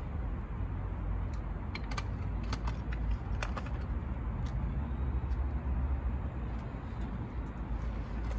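A cat with stomatitis licking and lapping at canned tuna in a plastic dish: small wet clicks at irregular intervals. Under them runs a steady low rumble.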